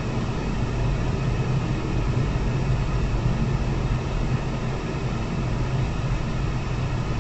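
Steady road and engine noise inside a moving car's cabin, cruising at about 60 km/h, with a low hum under an even rush of noise.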